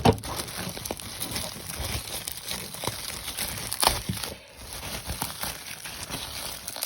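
Packing material crinkling and rustling as it is pulled off and unwrapped from a Lego model, with scattered small clicks and one sharper click about four seconds in.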